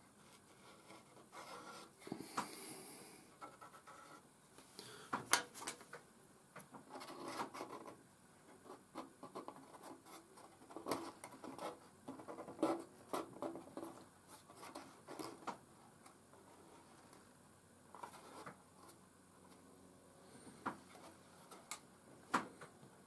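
Faint, irregular light clicks, taps and scraping as small laser-cut wooden struts are handled and pressed into place on a model bridge frame.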